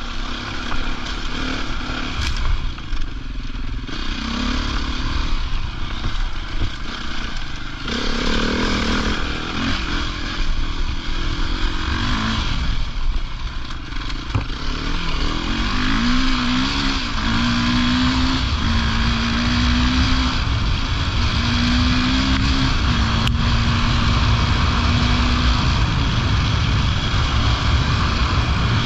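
Off-road rally motorcycle engine under way on a gravel trail, its note climbing and dropping back several times in the second half as it shifts through the gears, over a steady rush of noise.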